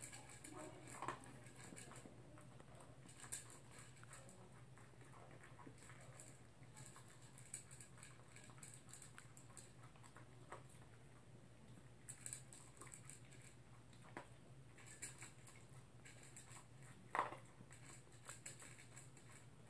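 Toy poodle eating kibble from a plastic bowl: faint, scattered clicks and crunches, with a low steady hum underneath.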